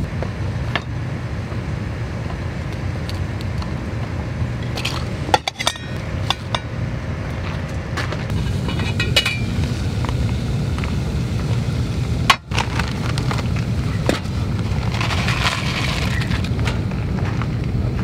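Portable gas stove burning steadily under a stainless steel pot of water at the boil, with a few sharp metallic clinks of the pot lid and dishes.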